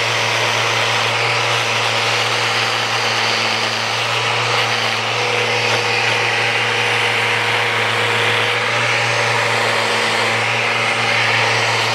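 Festool RO 90 sander with a 40-grit disc running steadily against the natural edge of a wood slab, with its dust extractor running.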